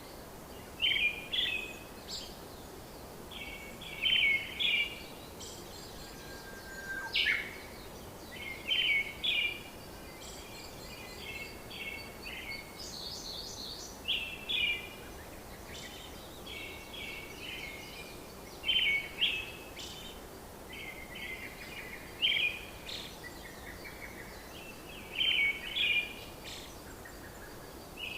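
Birds chirping: short quick runs of notes come every two to three seconds, with other higher calls in between, over a steady background hiss.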